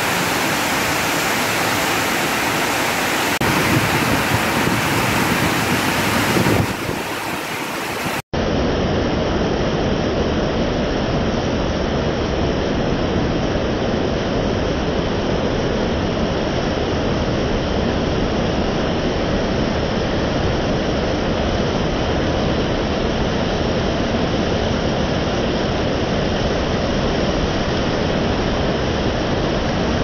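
Heavy rain pouring down steadily, a loud even hiss, with a brief break about eight seconds in.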